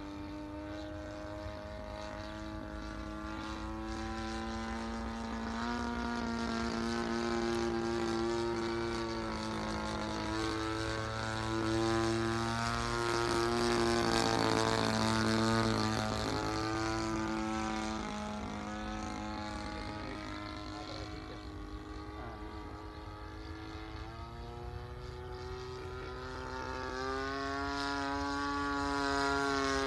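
Extra 360 aerobatic plane's propeller engine droning in flight. Its pitch rises and falls as it manoeuvres and passes, loudest about halfway through, dipping, then growing louder again near the end.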